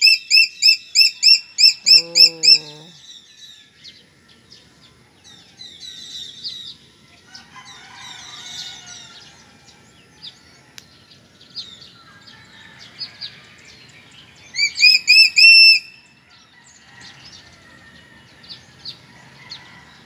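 A large eagle calling: a quick series of loud, high, rising yelping notes over the first few seconds, then a second short burst of about five notes near the end. Faint chirps of small birds in between.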